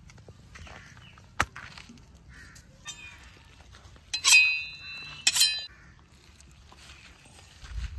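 Metal scraped along a knife blade in two strokes, each leaving a short high metallic ring, as the knife is sharpened against another edge. A single sharp click comes about a second and a half in.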